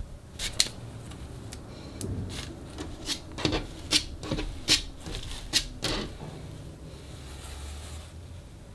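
A cloth bandana rustling as it is handled and folded flat on a table. A series of sharp taps and clicks falls in the middle, and the rustling goes softer from about six seconds in.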